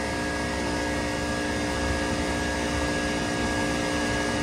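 Daikin AGZ air-cooled chiller running with one single-speed compressor on and its condenser fans turning: a steady mechanical hum with a steady low tone and a fainter higher whine.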